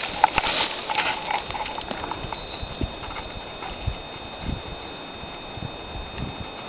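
Footsteps and knocks on stony ground, a few irregular thuds. Faint high chirping runs through the second half.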